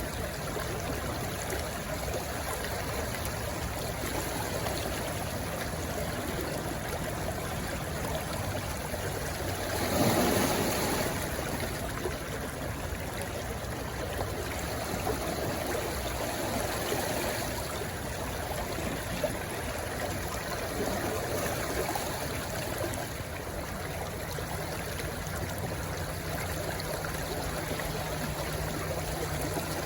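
Small stream rushing and splashing where it runs into the sea, a steady flow of water with a louder surge of water about ten seconds in.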